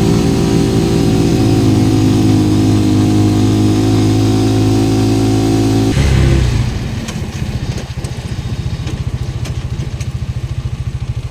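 Motorcycle engine running steadily at a constant speed, then dropping about six seconds in to a lower, evenly pulsing idle.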